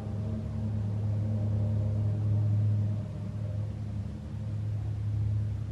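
Domestic cat purring steadily while being stroked on the head, a low pulsing rumble that swells and eases with its breaths.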